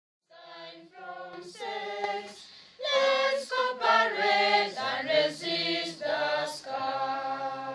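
Small choir singing a cappella, several voices together on held notes. It comes in softly just after the start and gets much louder about three seconds in.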